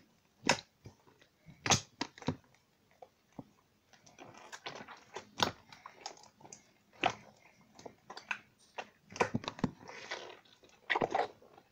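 Thick slime being kneaded and pressed by hand in a plastic storage box: irregular squishes and sharp pops, sparse at first and busier from about four seconds in.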